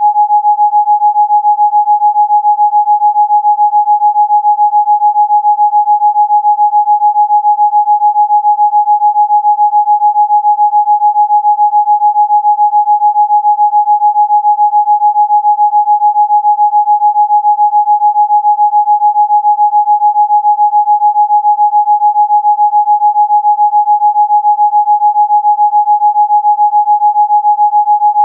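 A single steady electronic sine tone, held at one pitch without change: a Rife frequency tone.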